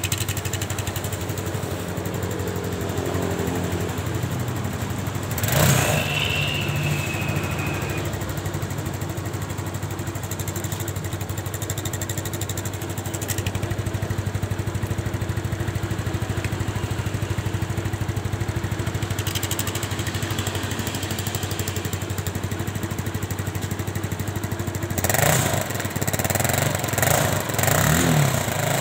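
Scooter engine idling steadily, with a short louder burst about five seconds in. Near the end it is revved several times, rising and falling, with the rear wheel spinning, through an exhaust tip fitted with a rolled piece of drink can to change its note.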